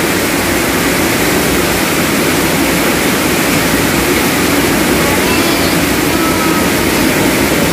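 Heavy rain pouring down, a loud steady rushing hiss.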